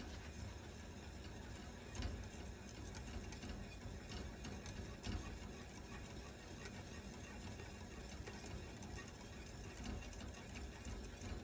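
Faint stirring of egg whites and sugar with a whisk in a bowl over simmering water, with small irregular clicks of the whisk against the bowl: the sugar being dissolved for a Swiss meringue.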